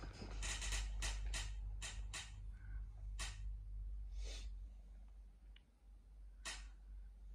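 A steady low hum with a scatter of short, irregular rustling noise bursts, most of them in the first half.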